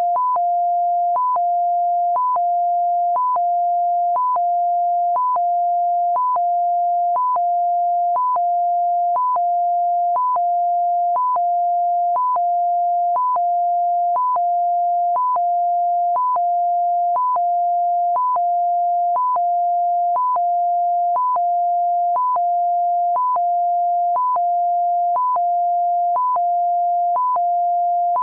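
Synthesized warning siren of an emergency engineering repair vehicle: a steady low electronic tone held for most of each second, cut by a short higher beep, repeating about once a second.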